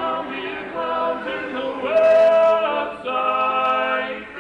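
Male vocal quartet singing a cappella in four-part harmony (tenor, lead, baritone, bass), moving through sustained chords with a loud held chord about two seconds in.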